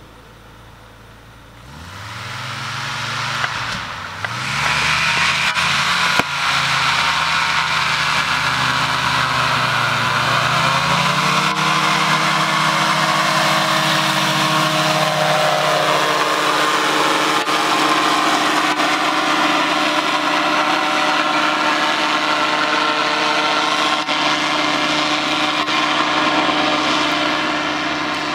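Powered parachute's propeller engine throttling up for the take-off roll. About two seconds in the engine sound swells, then it runs loud and steady at full power through lift-off and the climb, easing slightly near the end.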